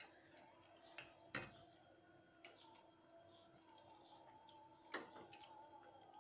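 Near silence broken by three faint clinks of a metal ladle against a stainless steel pot as pea stew is ladled onto a plate, two close together about a second in and one near the end.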